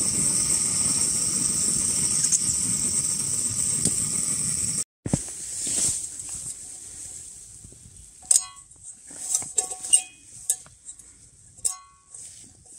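Gas canister stove burner hissing steadily for about five seconds, then stopping abruptly. After a short lull, the wire bail handle of a metal pot rattles against the pot as it is fitted, with several sharp, briefly ringing metallic clinks.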